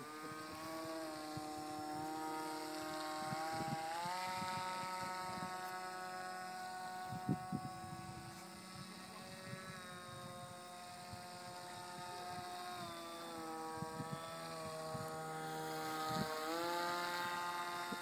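Motor and propeller of a foam RC aircraft whining in flight, the pitch rising a few seconds in, sinking midway, dipping briefly near the end and climbing again as the throttle changes. Scattered low thumps run underneath.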